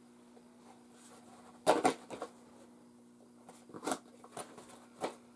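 A small cardboard package being handled and opened by hand: a few short crackles and rustles of packaging, the loudest about two seconds in and smaller ones near four and five seconds, over a faint steady hum.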